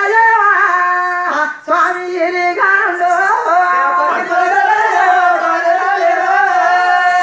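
Men singing a folk song loudly in high voices, with no drum strokes standing out. The tune moves through short phrases, then settles into one long held note in the second half.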